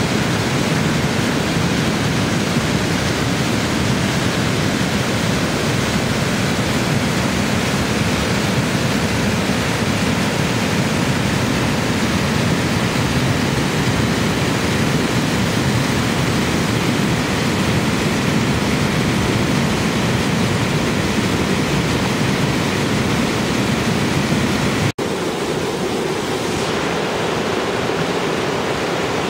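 Small waterfall rushing steadily. A momentary break about 25 seconds in, after which the rush carries on.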